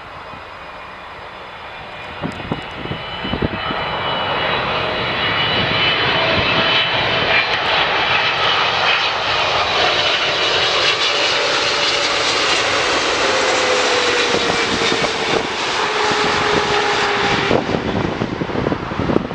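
Jet airliner engines, the sound building over several seconds as the aircraft draws close and then holding loud, with a high whine over a dense rush and lower tones that slowly fall in pitch.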